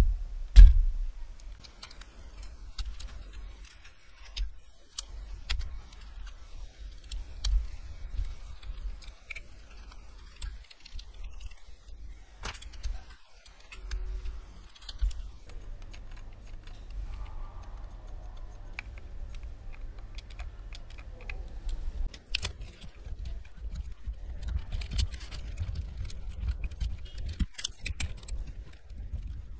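Plastic building bricks being handled and pressed together: scattered small clicks and light knocks of plastic parts, with dull bumps from handling.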